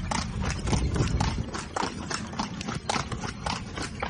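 Horse hooves clip-clopping on a hard road in quick, uneven knocks, several a second, over a steady low rumble.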